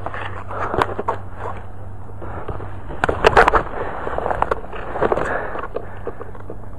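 Leaves and twigs rustling and scraping right against the microphone as the rifle-mounted camera pushes through dense brush, with irregular sharp crackles, loudest in a cluster about three seconds in.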